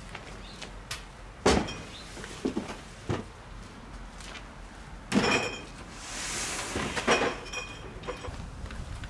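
A series of knocks and clattering clinks from hard objects being handled, the louder ones about five and seven seconds in ringing briefly like metal or glass, with a short hiss between them.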